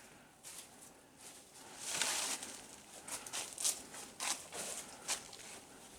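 A hiker's footsteps on the forest trail: irregular scuffing and crunching steps, with a longer scuff about two seconds in.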